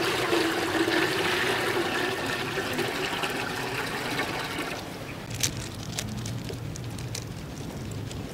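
Water poured in a steady stream into a metal cooking pot, splashing as the pot fills, for about five seconds before the pour stops. A few light clicks and taps follow.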